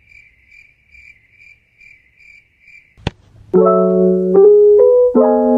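Cricket chirping, one high note repeated evenly about twice a second, then a sharp click about three seconds in, and loud electric-piano music begins.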